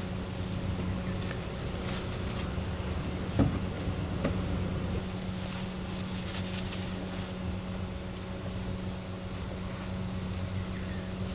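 Steady hum of a wok stall's burner and fan, with metal clinks and scrapes of a spatula working the wok and one sharp knock about three and a half seconds in.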